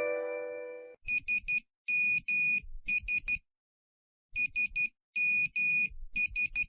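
The last chord of a chime-like ringtone fades out. Then a phone's electronic beep tone plays twice: three short beeps, two longer ones, three short. That is Morse code for 'SMS', the classic Nokia text-message alert.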